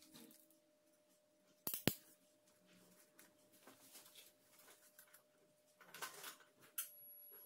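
Steel surgical forceps handled on the drape: a sharp metallic double click about two seconds in, with faint rustling of handling later.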